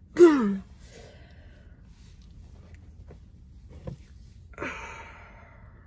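A woman's short voiced groan, falling in pitch, just after the start. About four and a half seconds in comes a long breathy sigh that fades away.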